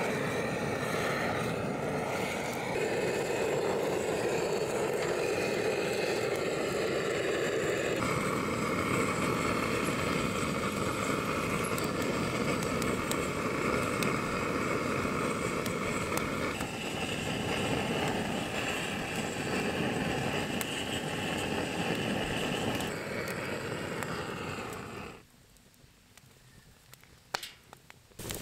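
Gas torch on a butane canister burning with a steady hiss, its tone shifting a few times; it cuts off suddenly near the end.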